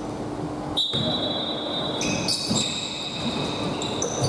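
Basketball shoes squeaking on a hardwood gym floor in a run of short, high squeaks at several pitches, with a single thud just under a second in, against the murmur of a large hall.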